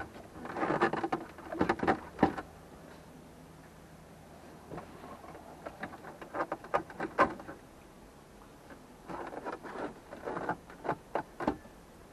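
Hands working on a car's dashboard: irregular clicks, knocks and rustles of plastic trim and tools, in three spells separated by quieter stretches.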